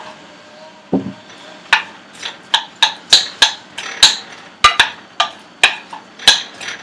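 A cooking utensil knocking against a frying pan as chopped onion is stirred in oil to sauté, in quick sharp clacks about three a second.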